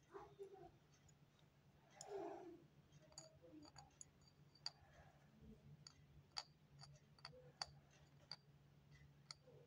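Near silence with a few faint, scattered clicks and taps, and a soft rustle about two seconds in: a porcelain saucer being handled and gummy candies set down on it.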